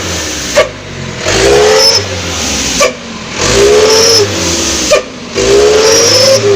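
Mitsubishi Canter truck's diesel engine revved repeatedly through an aftermarket Srigala turbo-style exhaust with a deep, growling 'ngorok' note. There are about three throttle blips roughly two seconds apart: each rises and holds, then cuts off with a sharp pop and dips before the next.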